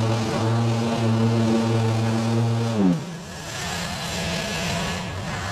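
Small gasoline engine running fast and steady, then dropping in pitch a little under three seconds in and carrying on lower and rougher.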